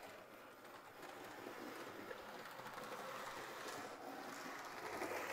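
Hornby OO-gauge Emily model steam locomotive running along its track: a steady whirr of the small electric motor and rumble of the wheels on the rails, growing louder near the end.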